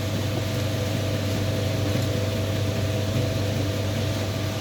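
Shallot slicing machine running steadily: a constant low hum with a fainter steady whine above it.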